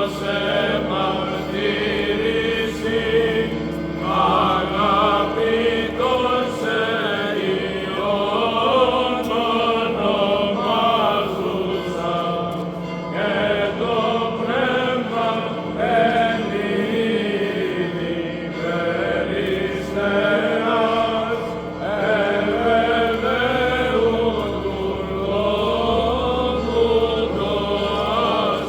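Byzantine-style Greek Orthodox liturgical chant: voices singing a winding melody over a steady held drone note, part of the Theophany service for the blessing of the waters.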